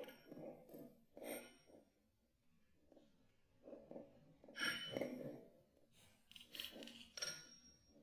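Kinetic sand being squished and dropped: a string of soft, irregular squishing and crumbling sounds, a few of them with a brief high clink.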